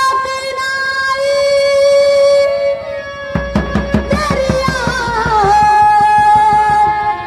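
A woman singing a ghazal over a stage PA, holding one long note. About three and a half seconds in, a drum rhythm joins, and her melody turns wavering and ornamented before settling on another long note.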